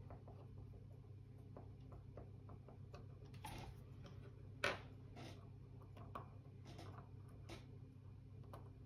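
Faint scattered clicks and ticks of a screwdriver and small metal parts being handled as a screw is driven into an airsoft Hi-Capa hop-up unit, with one sharper click a little under five seconds in.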